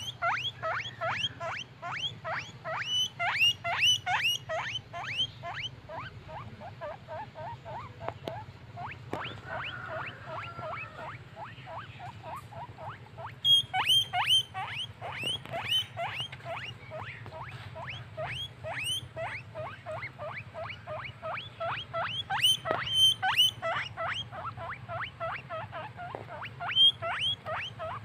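Guinea pig wheeking: rapid runs of short, high squeaks at about two to three a second. The calls thin out for several seconds in the middle, then pick up again.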